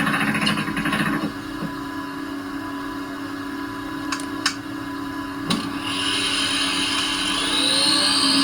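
Model locomotive sound decoder reproducing a Rhaetian Railway Ge 4/4 III electric locomotive through its loudspeaker. Over a steady electrical hum come a few sharp clicks, then about six seconds in a rising whine of the traction drive that grows louder as the locomotive starts off.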